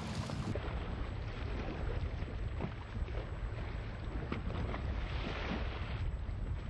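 Low, steady rumble of a boat's motor running, with wind buffeting the microphone.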